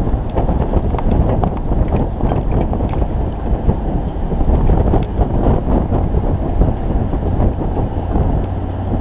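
Heavy wind buffeting the microphone of a motorcycle-mounted camera: a dense, steady rumble with scattered faint ticks, with no distinct engine note heard through it.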